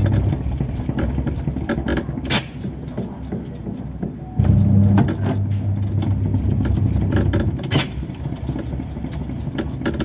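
Top-load washing machine's drive running underneath the tub: a steady rumble with scattered rattling knocks, a low motor hum at the start and again for about half a second midway, and two sharp clicks, one about two and a half seconds in and one near eight seconds.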